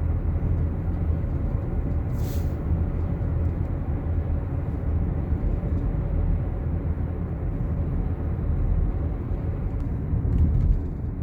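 Steady low rumble of a car's engine and tyres, heard inside the cabin while driving. There is one brief sharp noise about two seconds in.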